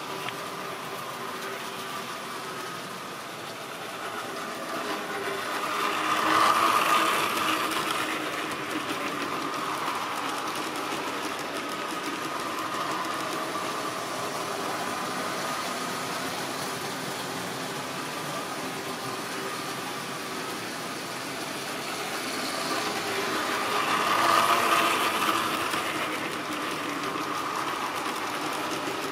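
Model railway trains running round the track: a steady whirring of small electric motors and wheels on the rails. It swells twice, about six seconds in and again about twenty-four seconds in, as trains pass close by.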